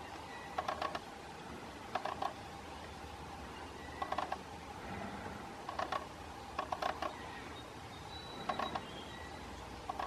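Pileated woodpecker pecking into a rotting tree stump while digging for wood-boring beetle grubs: short bursts of three or four quick knocks, repeated every second or two.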